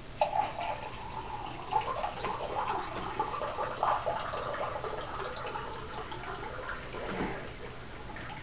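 Water poured in a thin stream from one drinking glass into another, a continuous trickling splash into the lower glass that starts just after the beginning and fades away near the end.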